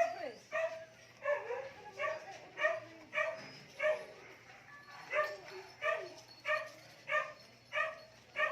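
A small dog barking over and over in an even rhythm, about one and a half short, high barks a second.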